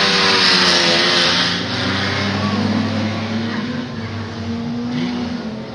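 Several race car engines revving on the track, with pitches rising and falling. They are loudest in the first second and a half, then ease off as the cars move away.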